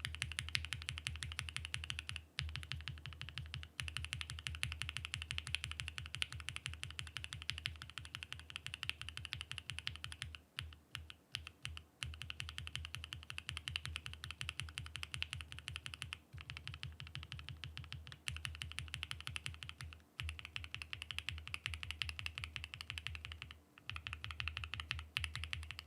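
Fast, continuous typing on a hot-swap mechanical keyboard with a POM plate, many keystrokes a second, broken by a few brief pauses.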